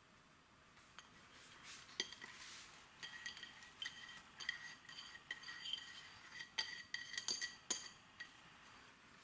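Sliced onion being tipped out of a bowl into a pot of vegetables: a string of light knocks and clinks on the bowl, each with a short ringing tone, between about two and eight seconds in.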